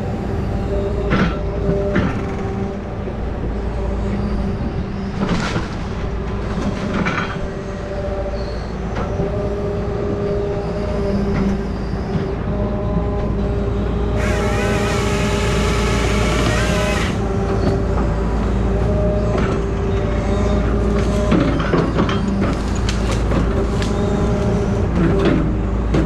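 Grapple saw machine's diesel engine running steadily, with scattered knocks from the grapple and wood. About 14 seconds in, the saw cuts for about three seconds with a loud, high, wavering whine.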